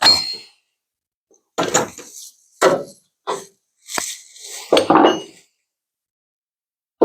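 Metal clanking: bodywork hand tools and sheet metal knocking together in about six separate clanks, the first ringing briefly.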